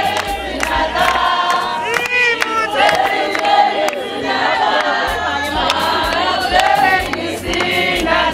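A crowd of wedding guests singing a celebration song together, with frequent sharp beats running through the singing.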